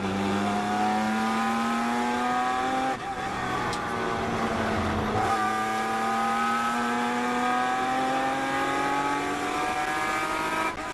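Datsun 240Z race car's inline-six engine heard from inside the cockpit, revs climbing under acceleration. The note breaks off about three seconds in, then climbs steadily again from about five seconds in, dipping briefly near the end.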